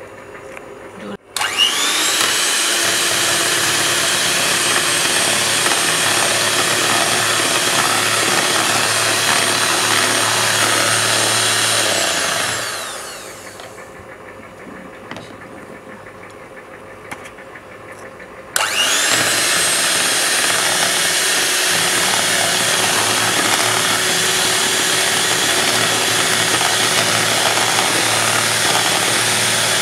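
Electric hand mixer (Vision) whisking egg whites in a plastic bowl. Its motor switches on about a second in with a steady whine, runs for about ten seconds, then winds down to a stop with falling pitch; after a pause of about five seconds it starts again and runs steadily.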